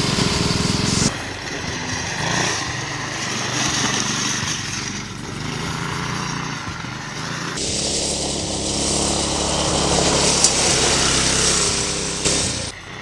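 Small engine of a 1990s Murray Kilowatt go-kart running as the kart is driven at speed over dirt. The sound changes abruptly about a second in, about halfway through and again near the end.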